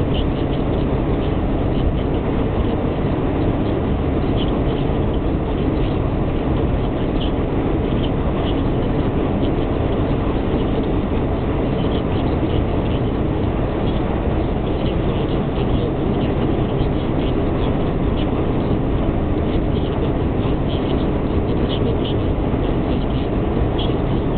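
Steady cabin noise of a car cruising at motorway speed: a low, even drone of tyres, engine and wind, with faint high ticks scattered through it.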